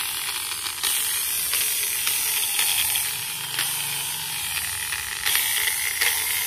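Bosch variable-speed angle grinder's motor running, a steady hiss with a few brief surges. The grinder is still faulty after new carbon brushes, and the owner puts this down to a bad on/off switch as well.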